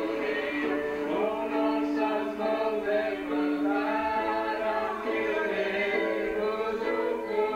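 Several voices singing a worship song together in long, held notes.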